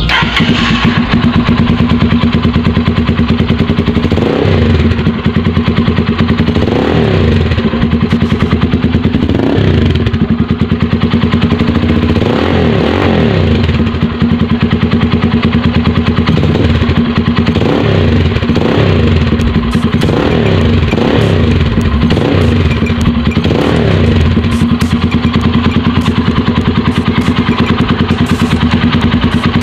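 Motorstar Xplorer Z200X's single-cylinder engine running through an aftermarket Akrapovic-branded exhaust, idling and revved in about a dozen short blips, several in quick succession in the second half. It is a sound test of the new pipe.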